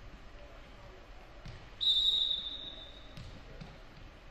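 Referee's whistle: one steady, high blast about two seconds in, lasting about a second and fading, typical of the whistle that signals the serve in volleyball. A few soft thumps of a ball bounced on the gym's hardwood floor come before and after it.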